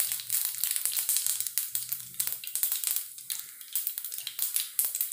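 Mustard seeds spluttering and popping in hot coconut oil in a frying pan: a dense crackle of sharp pops that thins out and quietens toward the end. This is the tempering stage, the seeds bursting once the oil is hot enough.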